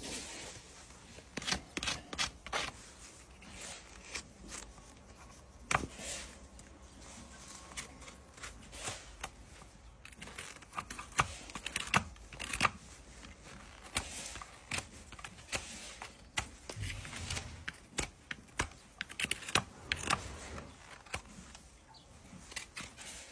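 Farrier's tools cutting and scraping a draft horse's hoof: irregular sharp snips and scrapes, several a second in spells with short pauses.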